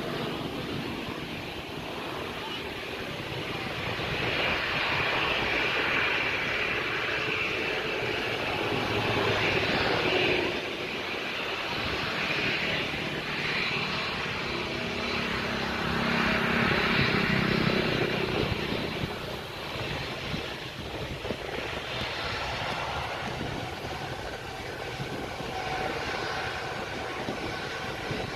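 Airliner engines at takeoff power: a loud, steady noise that swells about four seconds in and again past the halfway point.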